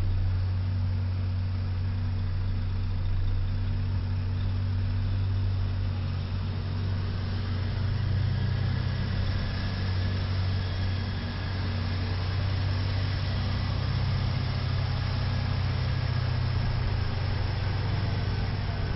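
Street traffic with heavy trucks: a steady low engine drone under road noise, swelling about eight seconds in and again toward the end as trucks pull through.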